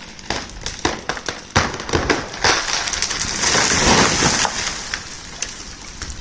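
A large poplar falling after being cut. First comes a run of sharp cracks and snaps as the wood gives way. Then comes a long crash of breaking branches as the crown hits the ground, loudest about four seconds in.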